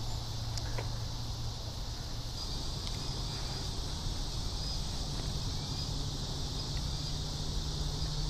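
Steady outdoor chorus of insects, a continuous high buzzing drone, with a faint low rumble underneath.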